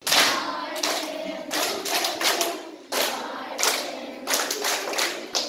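A group of young children singing together with rhythmic hand clapping.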